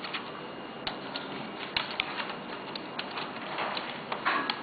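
Small plastic and metal parts of an opened DVD writer drive clicking and tapping as they are handled and fitted into the plastic chassis: irregular light clicks over a steady hiss.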